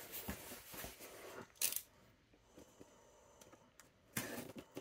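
Faint handling noises of a mailed package being opened by hand: scattered light rustles and clicks, with a sharper crackle about a second and a half in, a near-silent stretch, and more rustling near the end.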